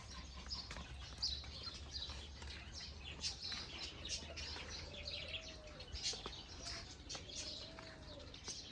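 A mix of caged birds calling: many short, high chirps throughout, with two longer, low cooing calls around the middle.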